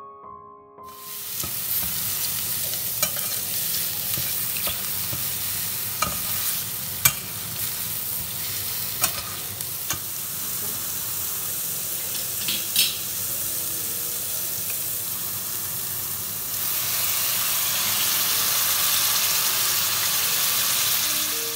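Sliced onions, garlic and mushrooms sizzling in oil in a stainless steel pan as they are stirred, with scattered sharp clicks of the spatula knocking and scraping against the pan. The sizzle grows louder about three-quarters of the way through.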